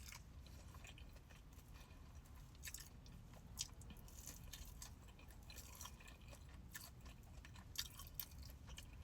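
Faint chewing of a deep-fried crab cake, with soft mouth smacks and a few small crunchy clicks over a low steady hum.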